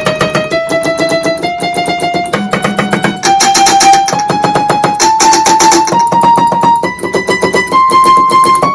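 Yamaha electronic keyboard played by a 1978 Pianocorder's key solenoids, running a key-check test: one key after another up the scale, a new note about every half to three-quarters of a second, each key struck rapidly over and over. Through the notes comes the loud clicking of the solenoids slapping the hollow plastic keys.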